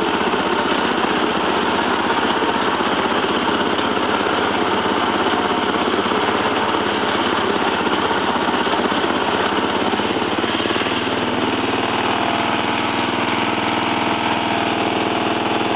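Arctic Cat Grass Cat lawn tractor's engine running steadily as the tractor drives over grass. About two-thirds of the way through, the engine note settles into a steadier hum.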